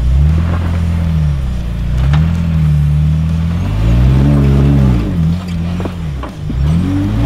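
Jeep engine revving up and down in slow swells, its pitch rising and falling several times, with a few sharp clicks.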